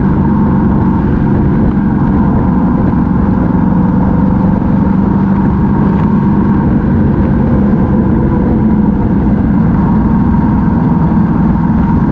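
Yamaha MT-07 parallel-twin engine running at a steady cruising speed, its pitch holding level, with wind rumbling on the microphone.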